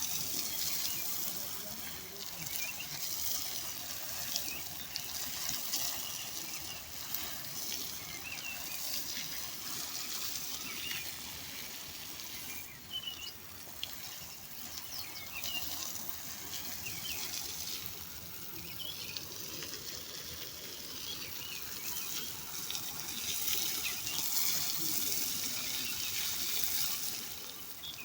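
Water running steadily with a hiss, with short bird chirps now and then.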